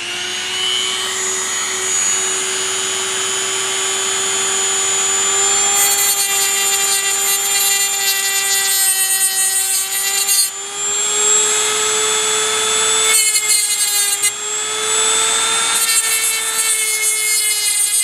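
Dremel rotary tool with a thin abrasive cut-off wheel running at a steady high whine while grinding a new slot into a stripped screw head, so a flathead screwdriver can grip it. A harsher rasping grind comes and goes as the wheel bites, loudest in two stretches in the middle, and the tool stops at the very end.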